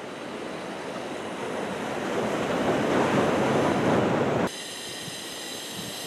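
Heavy typhoon surf: the rush of big waves breaking into whitewater, building to its loudest about three to four seconds in. It cuts off abruptly a little after four seconds, replaced by a quieter, steady hiss.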